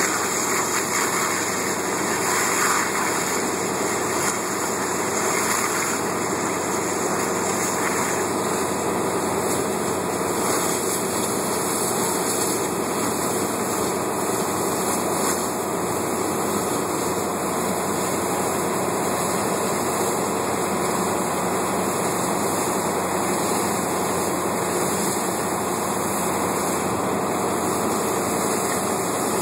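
Steady, unbroken rushing noise from a burning propane tank fire prop and the hose streams being played onto it.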